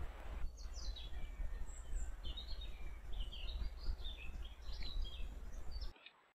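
Small songbirds chirping and calling in short, scattered high notes over a steady low rumble; the sound cuts off about six seconds in.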